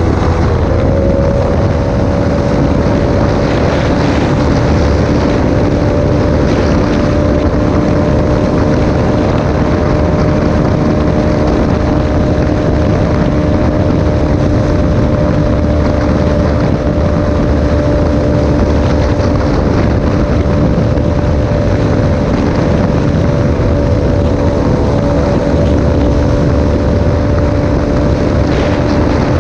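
Yamaha R3 parallel-twin engine with a full aftermarket exhaust, pulling at high speed at nearly constant revs, its pitch stepping up slightly about a second in and then holding steady. Steady wind rush on the microphone runs underneath.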